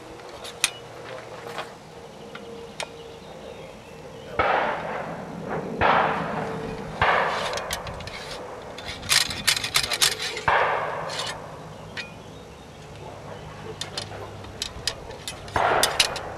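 Sharp metallic clicks and taps mixed with several short scraping rushes, each about a second long, from handling a muzzle-loading rifle; there is a quick run of taps about two thirds of the way through. No shot is fired.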